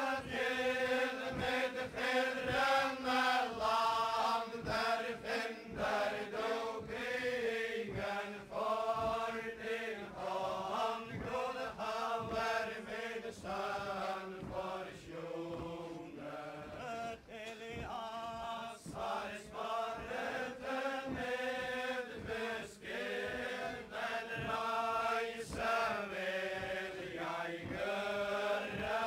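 A group of voices chanting a Faroese ballad-style wedding song unaccompanied, in a 1959 recording. The singing moves line by line through a verse and then into the next verse, with short breaths between phrases.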